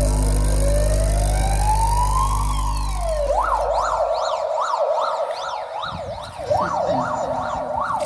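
Car stereo playing a sound-test track: a deep steady bass drone under a slow rising tone, which gives way about four seconds in to a fast up-and-down siren wail, about two sweeps a second.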